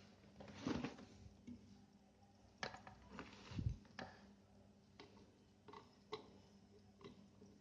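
Faint scattered light clicks and knocks of handling, with one dull thump a little past halfway, over a faint steady low hum.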